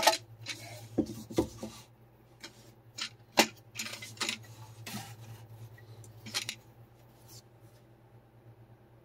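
Light clicks and knocks of 3D-printed plastic deck box parts being slid apart and set down on a tabletop, about a dozen in irregular succession, dying away after about seven seconds.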